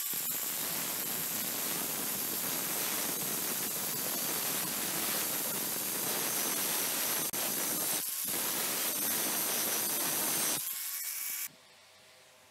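Angle grinder with an abrasive wheel grinding a stainless steel blade: a steady, loud grinding hiss with a brief break about eight seconds in, stopping shortly before the end.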